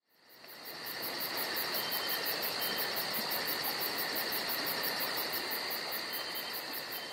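Insect chorus chirring steadily, with a fast even pulsing high on top at about six pulses a second. It fades in over the first second.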